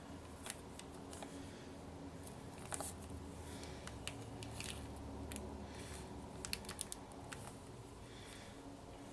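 Faint crinkling and clicking of a small plastic sachet being squeezed and worked between the fingers, in irregular little bursts, over a low steady hum.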